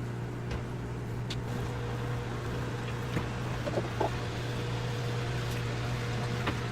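Aquarium sump pump humming steadily with water running through the sump and overflow plumbing, and a few faint light knocks.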